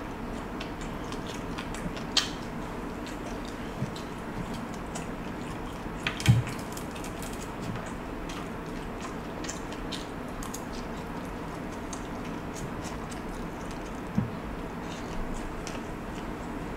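Close-up eating sounds: chewing of crispy fried galunggong (round scad) fish and rice, with scattered clicks of a fork and spoon against the plate, over a steady hiss. A few louder knocks stand out, the strongest about six seconds in.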